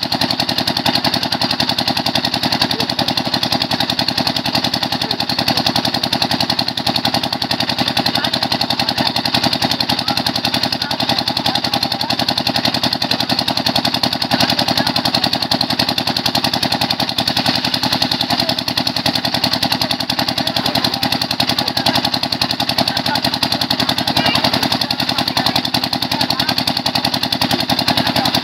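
A 7.5 hp pump-set engine running steadily with a rapid, even firing beat. It drives the water pump that sends water down the hand-turned drill pipe while the borewell is bored.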